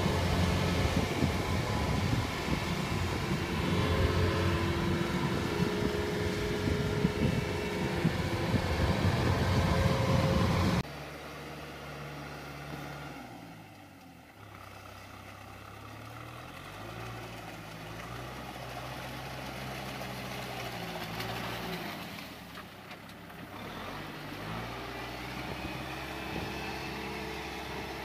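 A loud, close machine engine runs for the first ten seconds or so, then cuts off abruptly. A quieter diesel tractor engine follows, working hard as the tractor pushes through deep mud, its engine speed rising and falling several times.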